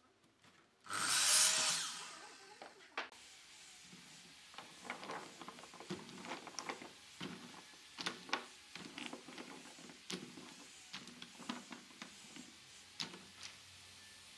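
A brief burst of a Makita miter saw cutting wood about a second in, the loudest sound. It is followed by a long run of light knocks and clicks as small wooden blocks are handled and dropped one by one into a plastic basket.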